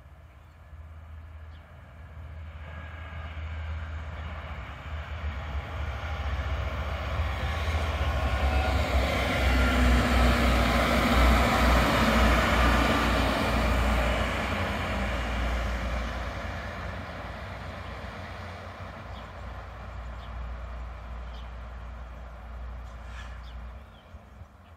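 DB class 641 diesel railcar train passing close by on the track. It grows louder, is loudest about twelve seconds in as it goes past, then fades as it runs on.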